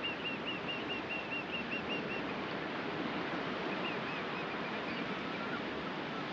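A bird calling in a fast run of short, high notes, about five or six a second, that stops about two seconds in, with a few fainter notes a second or so later. A steady wash of noise lies under it.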